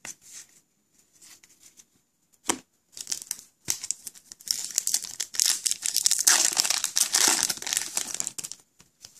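Foil wrapper of an Upper Deck MVP hockey card pack being torn open and crinkled by hand: a dense crackling rustle from about three seconds in until shortly before the end, preceded by a few light handling taps and a single knock.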